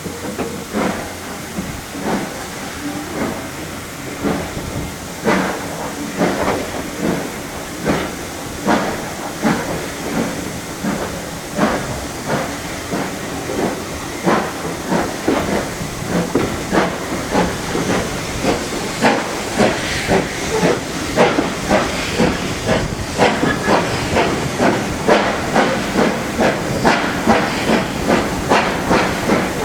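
Steam locomotive pulling away under load, its exhaust chuffs speeding up steadily to about three a second, over a constant hiss of steam. The beats grow slowly louder.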